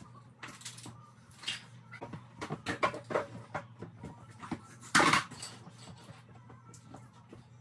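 Toys and household objects clattering and knocking as a child's playroom is tidied: a string of short knocks with a louder thump about five seconds in, over a low steady hum.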